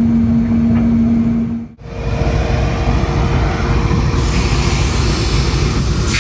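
Diesel locomotive 9045 running. First a steady hum with a low rumble from the moving cab, which cuts off abruptly under two seconds in. Then the locomotive's engine rumbles close by as it stands, and a hiss joins from about four seconds in.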